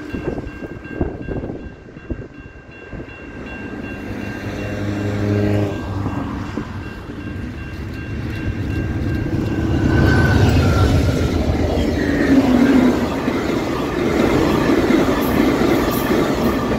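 VIA Rail Siemens Venture passenger train, led by a Siemens Charger locomotive, sounds a short horn blast about four seconds in, then passes at speed, the rolling rail noise building up and staying loud through the second half. A level-crossing bell rings underneath.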